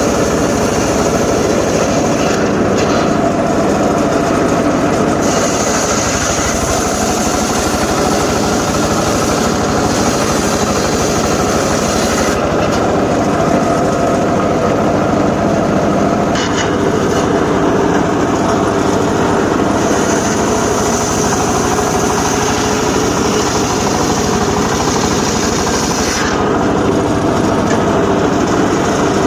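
Homemade engine-driven circular saw running steadily, with a high hiss that comes and goes in stretches of a few seconds as the blade cuts through johar wood.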